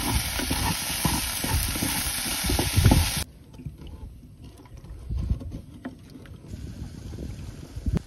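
Vegetables sizzling in a pot while a wooden spatula stirs them, a loud even hiss that cuts off abruptly about three seconds in. After that, much quieter stirring in the pot with low knocks and rumble.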